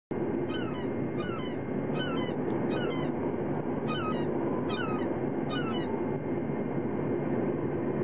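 Gulls calling: seven short falling calls in a steady series, about one every 0.8 seconds, over a steady rushing background. The calls stop about six seconds in, leaving only the background.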